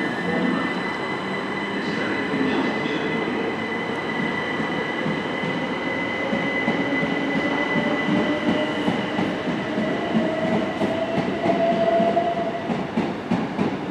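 Southern Class 377 Electrostar electric multiple unit pulling away and accelerating, its traction motors giving a slowly rising whine. In the second half its wheels click over the rail joints and points.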